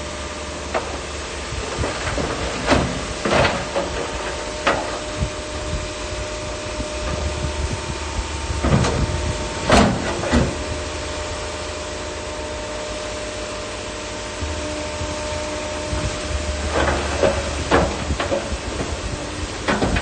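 SHANTUI DH17C3 Pro bulldozer working: its diesel engine runs steadily under a constant whine, with irregular clanks and scrapes as it pushes stone, the loudest about ten seconds in.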